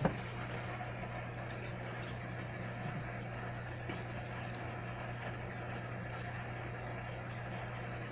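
A steady low machine hum with a faint hiss, unchanging throughout.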